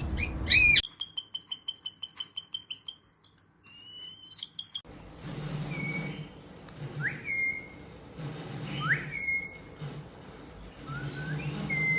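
A pet parrot whistling and chirping: first a quick run of chirps, then after a short pause several separate whistles that sweep up and hold a steady note.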